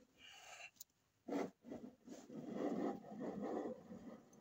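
A scraper blade scraping sticky, tar-like residue of old insulation off the painted steel floor of a Sprinter van. A short scrape comes near the start, then a rough, continuous scrape starts a little over a second in.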